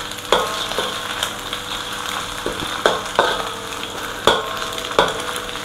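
Egg and sausage sizzling in hot oil in a metal wok, stir-fried with a metal spatula that knocks and scrapes against the wok about eight times, each knock leaving a brief ringing tone from the wok.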